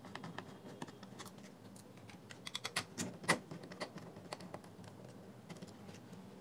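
A screwdriver backing out the small screws that hold a 40 mm speaker driver in a plastic speaker housing: scattered light clicks and scrapes, with a quick run of louder clicks about three seconds in.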